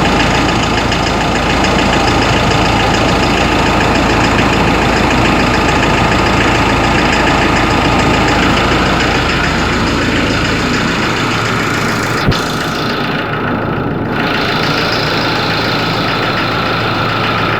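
Ford Ranger 3.0 turbodiesel engine idling with a steady knocking noise, the cold-engine noise that mechanics could not trace. A single sharp click about two-thirds of the way through.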